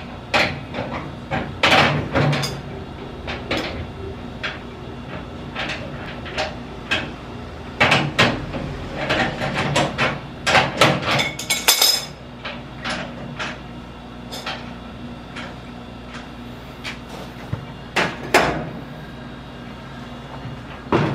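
A wrench on the steel leveling foot of a stainless steel appliance: irregular metallic clicks and knocks as the foot is turned to adjust the unit's height and level, with a steady low hum underneath.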